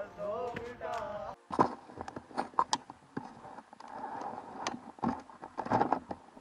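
Rustling and irregular clicks and knocks of riding gear being handled close to a helmet-mounted microphone, as the rider works at his glove and jacket sleeve. A short voice sounds in the first second or so.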